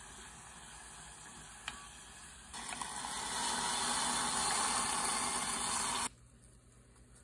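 Radish and minced meat sizzling faintly in a hot earthenware pot as they are stirred with a wooden spoon, with one click. About two and a half seconds in, water poured from a bowl into the pot gives a loud rushing hiss for about three and a half seconds, which cuts off suddenly.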